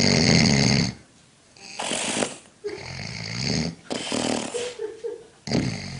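Loud, rasping snoring: one long snore of about a second at the start, then a string of shorter snores and breaths.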